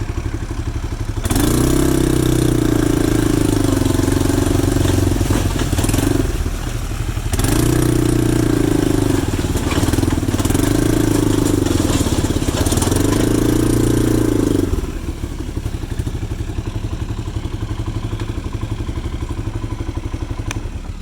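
Backhoe engine idling, then revving up about a second in and labouring through four long swells as the hydraulics take load, its pitch sagging and recovering with each, before settling back to idle near the end.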